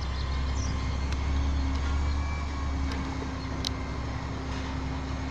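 Garbage truck engine running with a steady low rumble and hum, swelling slightly around the middle.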